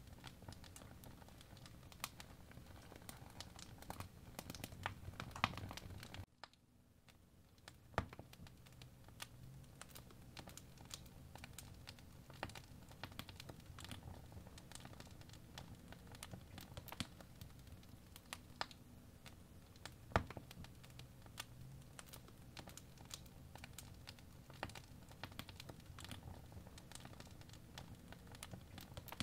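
Faint, irregular soft clicks and crackles over a low, steady background rumble. The sound cuts out abruptly about six seconds in and fades back up over the next second or two.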